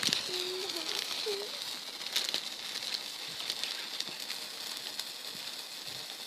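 Lit sparkler fizzing: a steady high hiss broken by scattered sharp crackles.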